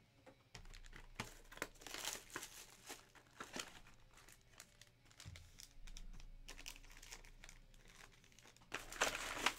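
Plastic wrapping on trading-card boxes crinkling and rustling as the boxes are handled, in irregular bursts with the loudest crinkle near the end.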